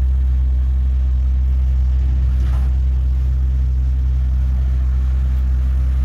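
Mack garbage truck with a McNeilus front-loader body, its diesel engine running with a steady low drone while the hydraulic arms hold a dumpster tipped over the cab to empty it into the hopper.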